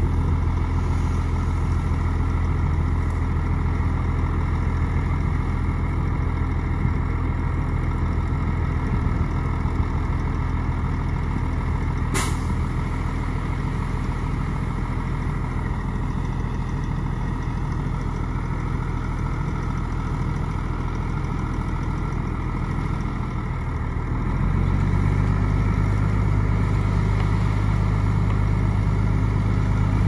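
Heavy diesel engine of earthmoving machinery running steadily. There is one sharp click about halfway through, and about 24 seconds in the engine revs up and gets louder.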